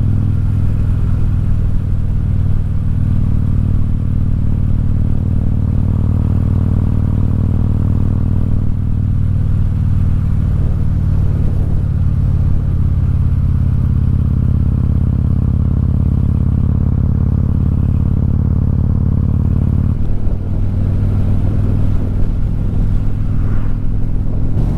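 Harley-Davidson Softail Deluxe's V-twin engine running steadily under way at road speed. The engine note changes briefly about twenty seconds in.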